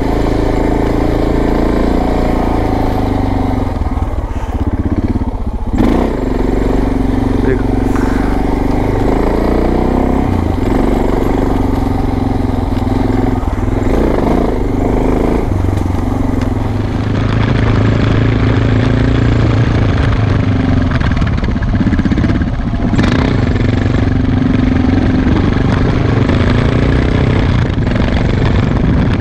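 Suzuki DR650's single-cylinder four-stroke engine running under load as the bike climbs a dirt track, its engine speed rising and dipping a few times with the throttle.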